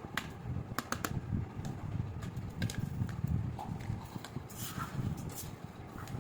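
Handling noise from plastic toys: several light clicks and taps over a low steady rumble.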